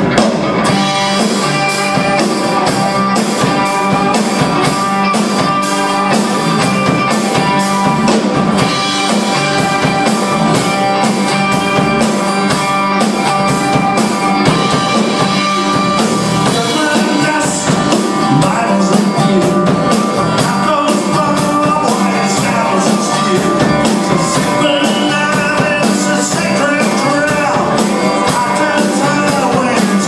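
Live country band playing: electric and acoustic guitars, bass and a drum kit keeping a steady beat, with a singer coming in around the middle.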